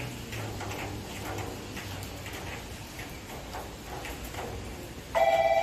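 Station platform ambience with a low hum and faint scattered clicks. About five seconds in, a loud electronic platform bell starts ringing as a steady warbling tone, the kind of chime that introduces a station announcement.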